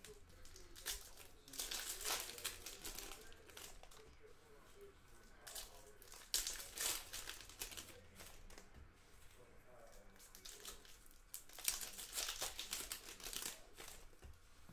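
Trading-card pack wrappers crinkling and tearing as packs are opened by hand, in three bursts a few seconds apart with quieter handling between.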